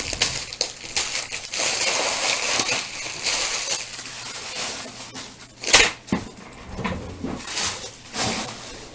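Crinkling and crushing of card-pack wrappers being handled, a continuous irregular crackle with one sharper, louder crackle a little before six seconds in.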